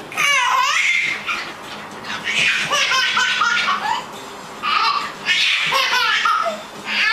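A cat making a run of high, wavering yowls, several calls with short gaps between.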